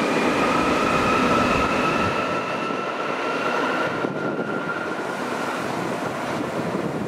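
Electric train pulling away over a steady rumble of wheels on rail. Its motor whine rises slowly in pitch for about four seconds, then fades.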